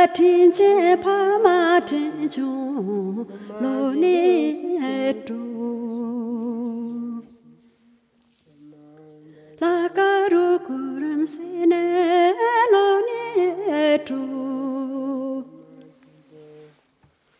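Music: a solo voice singing long, wavering, ornamented phrases over a low steady drone note, in two phrases with a pause of about two seconds in the middle.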